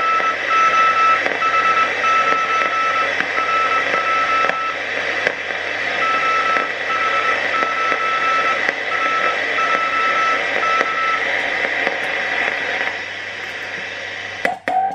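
Morse code (CW) heard through a World War II German EK shortwave receiver: a single keyed tone of dots and dashes over steady receiver hiss. It is another station answering the operator's call. The keying comes in two runs and stops about 11 seconds in, the hiss drops soon after, and a few sharp clicks come near the end.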